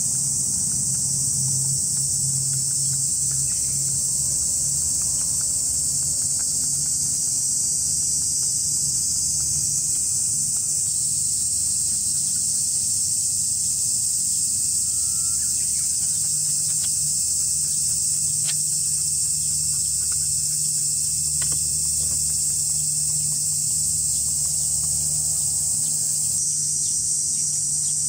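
Loud, steady, high-pitched chorus of cicadas, with a low steady hum underneath from the distant hovercraft's engines.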